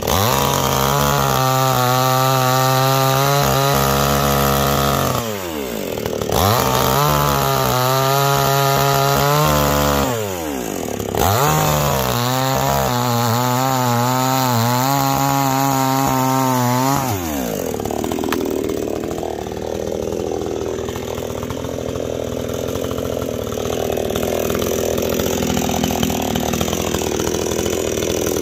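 A Neo-tec NCS5800 58cc two-stroke chainsaw runs at full throttle three times, its pitch falling sharply between runs. It drops back to idle about two-thirds of the way through.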